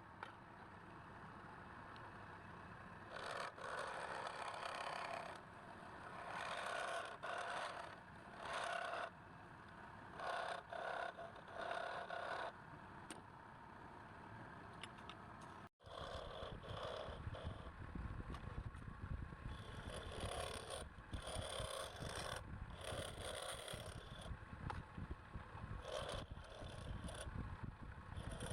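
Wood lathe running, with a turning tool scraping against the spinning wood in repeated strokes. The sound breaks off abruptly about sixteen seconds in and starts again.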